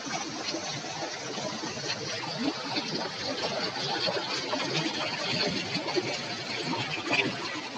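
River water rushing and churning in a steady roar of noise, flecked with small splashes and crackles.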